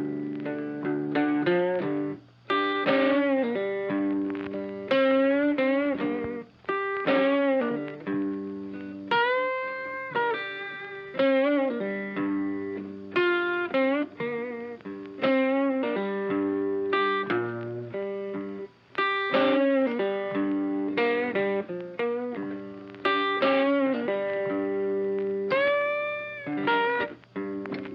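Background blues music led by an electric guitar playing bending, sliding lead phrases over a steady accompaniment.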